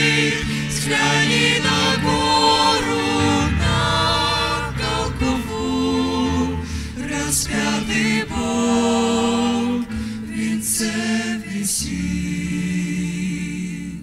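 Church choir and a front row of singers on microphones singing a Russian hymn in held chords, fading away near the end.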